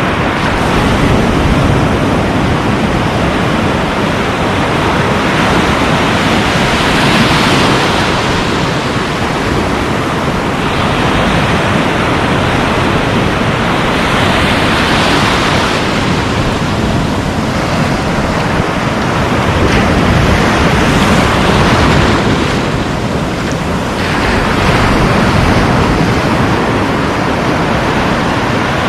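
Sea surf breaking on the shore, a steady wash that swells as waves break every several seconds, with wind rumbling on the microphone.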